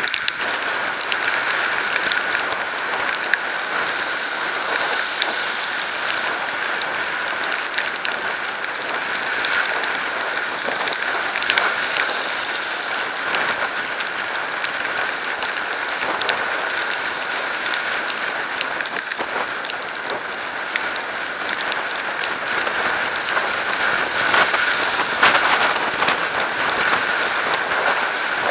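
Rain and road spray hitting a moving camera: many small sharp drop impacts over steady rushing wind and road noise at riding speed.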